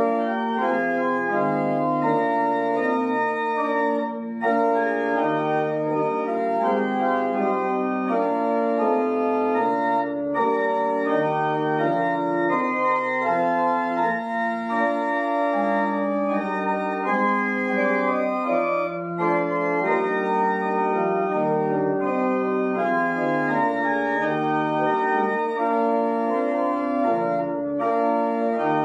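Organ playing a hymn tune in held chords that change every second or so.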